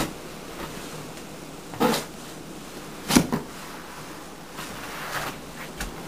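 Boots stepping through deep snow: a few muffled crunches and thuds, one right at the start, one about two seconds in and one about three seconds in, over a steady hiss.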